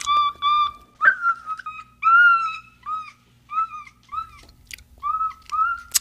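Macaque giving a run of short, high whistle-like calls: quick flat pulses at first, then separate arched calls that rise and fall in pitch, about two a second.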